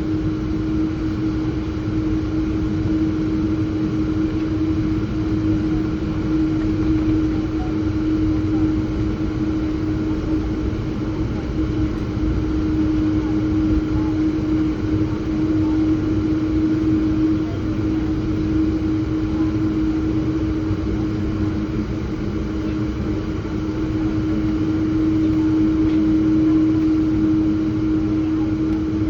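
Cabin noise inside an Embraer 195-E2 around takeoff: its Pratt & Whitney PW1900G geared turbofans give a steady roar with one constant low drone over it, swelling slightly near the end.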